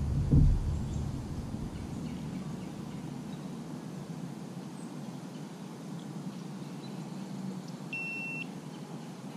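A single short electronic beep about eight seconds in, a GoPro action camera beeping as its battery dies. Under it, steady background hiss, with a brief low thump just after the start.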